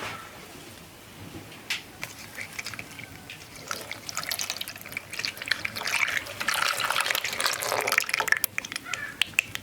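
Water pouring and splashing, full of small clicks and splashes, building about four seconds in and easing off near the end.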